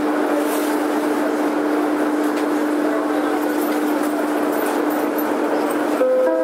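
Prague Metro M1 train running at steady speed, heard from inside the carriage: a loud, even rushing ride noise with a constant hum from the drive. Right at the end an electronic chime begins.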